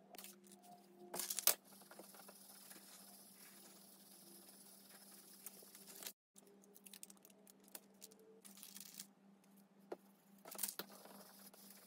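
Faint rustling and crinkling of thin gampi paper against an inked aluminium-foil printing plate as a sheet is laid down and rubbed by hand, with two short louder rustles, about a second in and near the end, and small scattered clicks.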